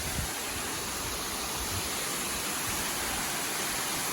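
Steady, even rushing of a waterfall: falling water hissing without a break.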